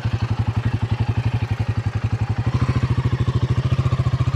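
Motorcycle engine running steadily at low revs, its exhaust beating in rapid, even pulses.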